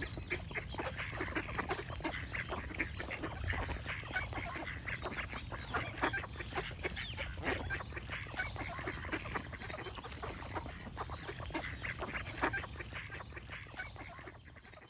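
A flock of ducks calling in a dense, overlapping chorus of quacks over a steady low rumble, fading out near the end.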